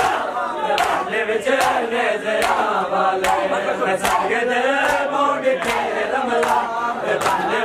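A crowd of men chanting a noha, a mourning lament, together in a rising and falling melody, while chests are beaten in matam: sharp hand strikes land in a steady beat, a little more than one a second.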